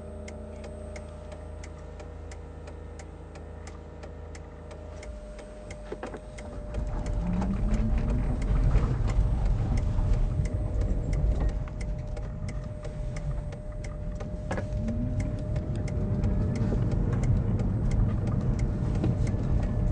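In the cabin of an electric Citroën Berlingo: its traction drivetrain whining, steady and quiet at first. About six seconds in, the car pulls away and the road rumble grows louder, with a rising whine twice as it speeds up. The hazard-light flasher ticks steadily throughout.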